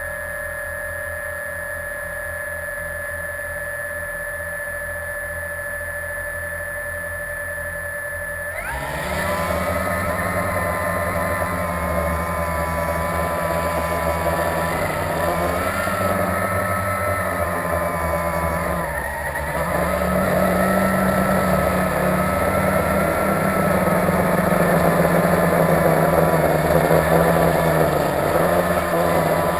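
Blade 350QX quadcopter's brushless motors, heard from its onboard camera. They first spin at a steady idle on the ground, then about nine seconds in they spin up for takeoff into a loud buzzing whine of several close pitches that waver as the drone manoeuvres, growing louder again about twenty seconds in.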